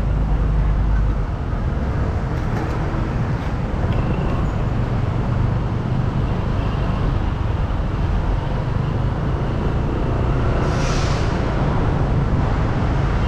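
Steady vehicle and road-traffic noise heard from a moving vehicle: a low engine and tyre rumble, with a short hiss near the end.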